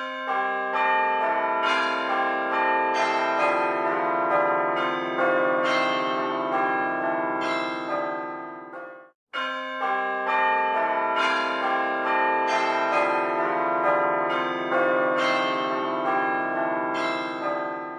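A melody of struck, ringing bell-like notes that overlap and sustain. A phrase of about nine seconds plays, breaks off abruptly, then repeats.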